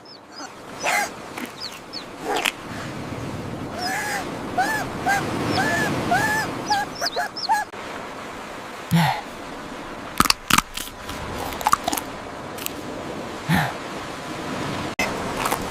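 A bird's chirping calls, a quick run of about six short rising-and-falling chirps, over a steady hiss with scattered sharp clicks.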